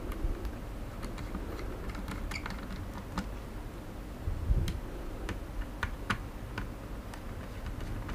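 Scattered small clicks and taps of a hand screwdriver turning a screw out of the plastic case of a Xiaomi Mi Drone 4K remote controller, with a soft low thump about halfway through.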